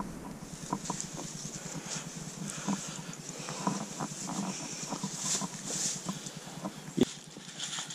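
Cattle and calves stirring in their shed: scattered light knocks and rustling in the straw, with one sharper knock about seven seconds in.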